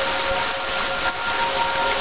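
Steady hiss of heavy rainfall, with a few soft, held tones sounding underneath it.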